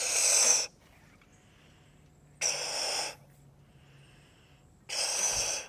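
A child blowing hard into the nozzle of a balloon-powered toy race car to inflate its balloon: three short puffs of rushing air, about two and a half seconds apart.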